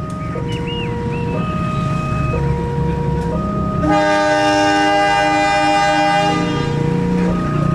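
KAI CC 201 diesel-electric locomotive sounding its horn, a chord of several notes held for about two and a half seconds from about four seconds in, over the steady rumble of its diesel engine. All the while a two-tone electronic alarm alternates between a higher and a lower note about once a second.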